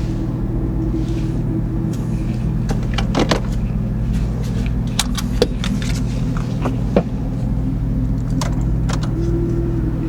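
Porsche 911 flat-six engine idling steadily, with scattered sharp clicks and a light jangling rattle over it.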